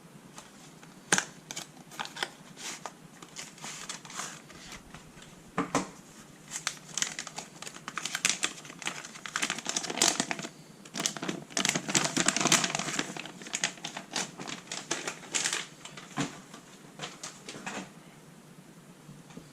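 Hand tools and fingers working on a Samsung Galaxy S22 Ultra during disassembly: irregular clicks and taps mixed with scraping, busiest about halfway through.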